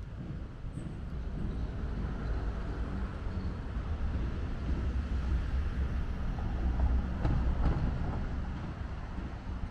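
A motor vehicle passing close by on the street: its low noise grows louder to a peak about seven to eight seconds in, then fades.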